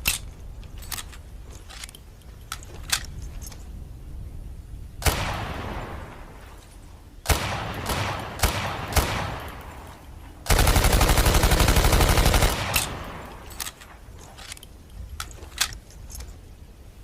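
M1A1 Thompson submachine gun firing: two single shots with fading echoes, a few sharp cracks, then a rapid burst of fully automatic fire lasting about two seconds past the middle. Lighter sharp clicks come before and after the shots.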